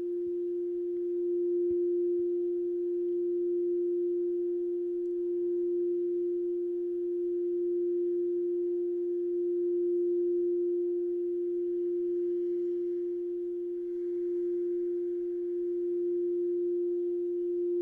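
A singing bowl being rimmed, sounding one steady, pure tone that swells and eases gently every couple of seconds.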